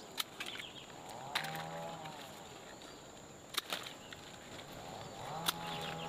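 Pruning shears snipping roselle stems, four sharp clicks a second or two apart. A farm animal calls twice in the background, each call drawn out and about a second long, over a steady high insect drone.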